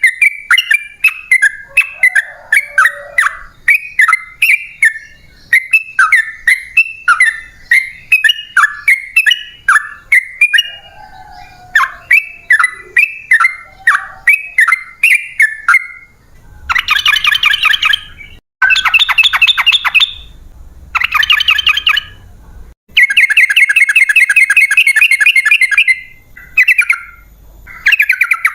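Yellow-vented bulbul (trucukan) singing: a long, fast run of short bubbly notes repeated two or three times a second, then, about two-thirds in, louder chattering phrases in separate bursts.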